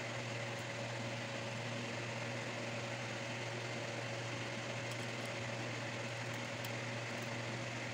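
A steady mechanical hum with a low drone and a thin higher tone, unchanging throughout, like a running fan or appliance in a small room.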